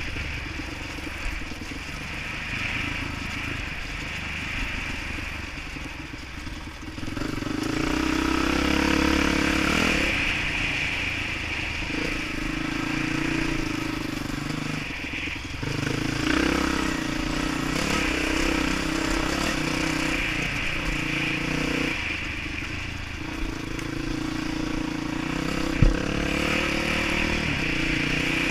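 Dirt bike engine running along a trail, its pitch and loudness stepping up and down with the throttle and gear changes, louder after about seven seconds. There is a single sharp knock near the end.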